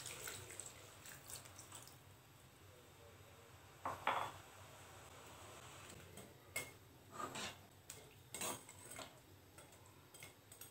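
Faint clinks and scrapes of a metal slotted spoon against an aluminium kadai while stirring milk and bread pieces, with milk poured in from a steel tumbler near the start. A few scattered knocks, the strongest scrape about 4 s in and a run of clinks later on.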